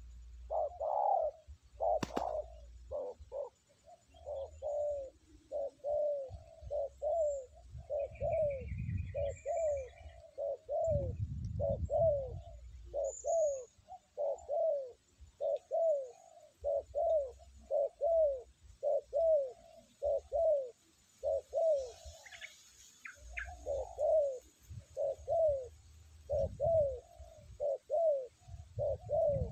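Spotted dove cooing: a long, steady run of short coos, about two a second, pausing briefly past the middle.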